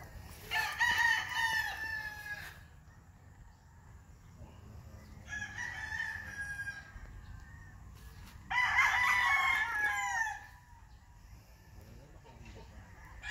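A young rooster, about five and a half months old, crows three times. Each crow lasts about one and a half to two seconds, with a short pause between them, and each ends in a falling tail.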